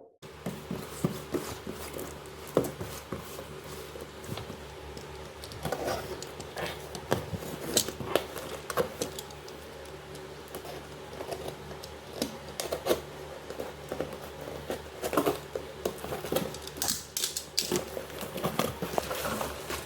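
Irregular rustling, crinkling and small taps of a jersey and its packaging being unboxed and handled by hand, over a faint steady hum.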